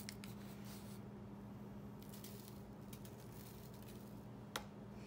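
Faint, soft, wet handling of cut fruit (jicama, mango, cucumber) being layered into a container, with a sharp click about four and a half seconds in, over a low steady hum.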